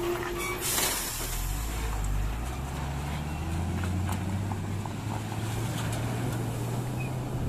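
Heavy tanker truck's diesel engine pulling slowly through floodwater, a steady low drone whose pitch climbs a little from about a second in and then holds. A brief air hiss, like an air-brake release, comes near the start.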